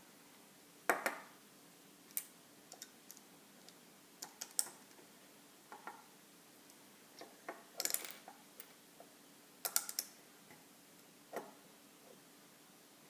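Plastic Lego pieces being handled and snapped together: irregular sharp clicks and short clattering rattles, a dozen or so, some in quick clusters.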